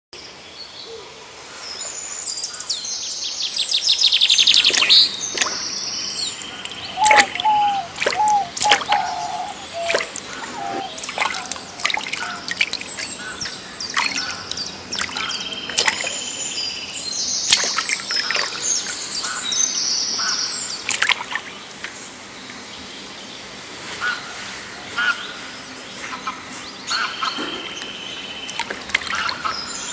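Several birds chirping and calling over and over, with a fast trill a few seconds in and a run of lower repeated notes around eight seconds in. Water sloshes and splashes as a person wades through shallow water.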